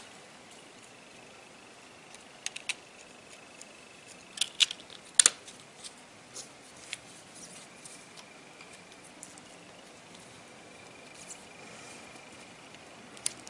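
Small sharp metallic clicks and taps of a metal frame and parts being handled and pressed into place on an iPhone 6 display assembly. The clicks are scattered, a couple of pairs, the loudest about five seconds in, then a few fainter ones and one more near the end.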